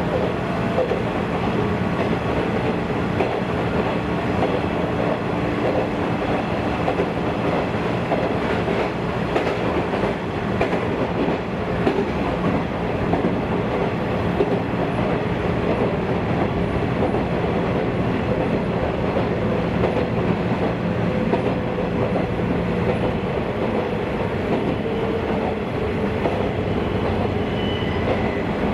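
Running noise inside a JNR 113-series electric train carriage under way: a steady rumble of steel wheels on the rails, with a faint hum that slowly drifts in pitch.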